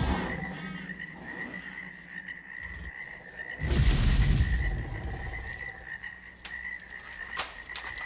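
Prehistoric jungle ambience sound effect: a steady high trill of frogs runs throughout, and about three and a half seconds in a loud, low creature roar swells and fades over about a second and a half.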